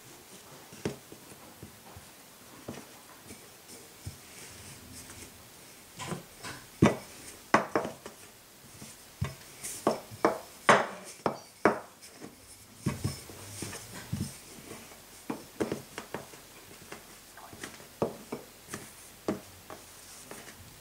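A run of irregular knocks and taps from kitchen work, thickest and loudest in the middle stretch.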